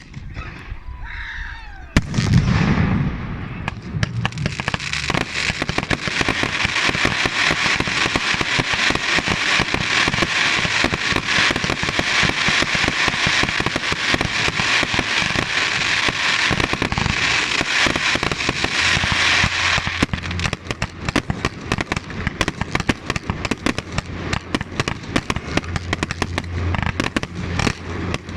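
Fireworks: a whistling glide in the first two seconds, a loud bang about two seconds in, then dense, continuous crackling and popping from many small bursts.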